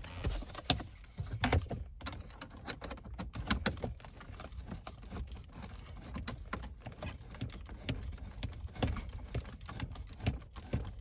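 Irregular small clicks, taps and rattles of hard plastic dash trim, with a hand screwdriver working a small screw in the center console panel.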